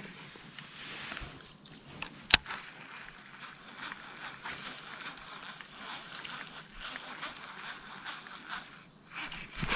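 Insects trilling steadily, with a high chirp repeating a few times a second, and a single sharp click about two seconds in.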